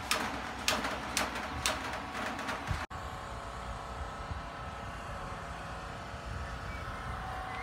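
Sharp metal knocks, about five in under three seconds, as a steel carport roof panel is handled and set onto its metal frame. After that comes a steady outdoor background noise with faint humming tones.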